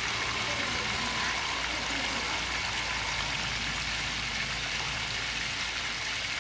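Chicken legs deep-frying in a wok of hot oil: a steady sizzle and bubbling.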